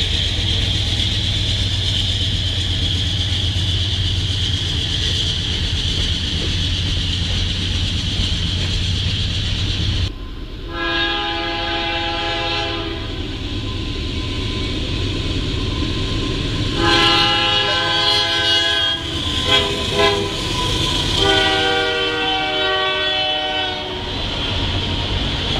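Canadian Pacific diesel locomotives running past with a steady engine rumble and a high hiss of wheels on rail. After a sudden break, another locomotive's multi-tone air horn sounds the grade-crossing signal: two long blasts, a short one, and a long one, as the train comes through.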